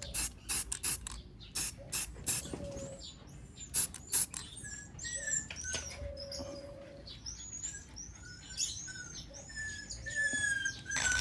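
A quick run of short, sharp bursts in the first few seconds, then high-pitched animal chirps repeating through the rest.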